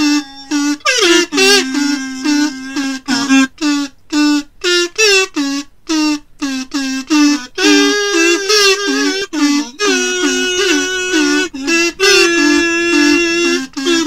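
Music: a high lead melody in a quick, choppy rhythm of short repeated notes with brief gaps between them.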